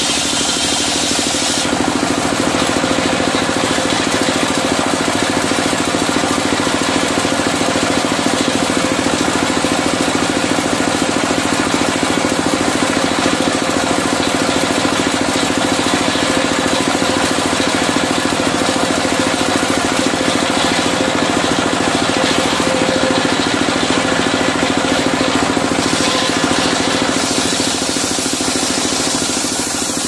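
Single-cylinder stationary diesel engine running steadily, driving a circular sawmill blade that is cutting timber by the end.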